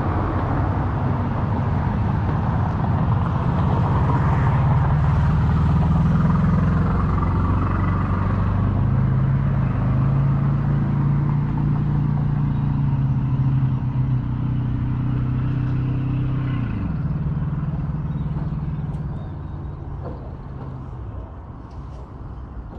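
Highway road noise: a passing vehicle's engine drone and tyre roar swell, drop in pitch about two-thirds of the way through, and fade away near the end.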